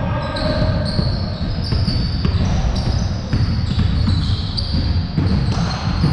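A basketball bouncing on a gym court during a pickup game, in a large echoing hall, with many short high-pitched squeaks.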